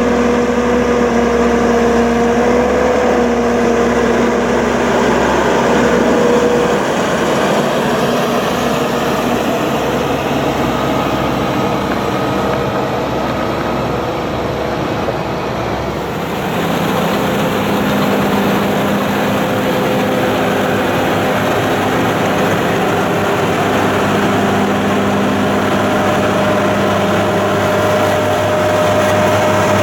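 Heavy diesel farm machinery running steadily, with a steady high whine over the engine note; the sound shifts about halfway through as a different machine sound takes over.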